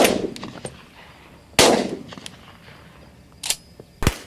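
Two shotgun blasts about a second and a half apart, each trailing off in an echo across the open field. A lighter crack follows, then a sharp, dull thump near the end.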